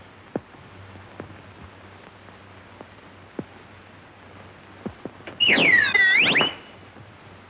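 A shrill, whistle-like tone that swoops down in pitch and back up again, lasting about a second, heard over the old film soundtrack's steady hum and a few faint clicks.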